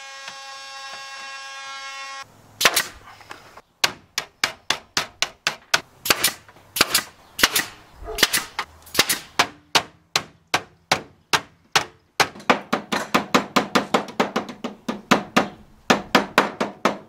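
Pneumatic stapler firing staples through the camper's metal skin into the wood frame, sharp shots about two a second and quickening in the last few seconds. Before it, a steady machine hum cuts off about two seconds in.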